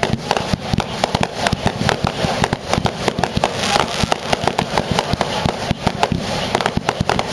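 Rapid barrage of aerial firework reports, many sharp bangs and crackles a second in a dense unbroken volley that starts abruptly.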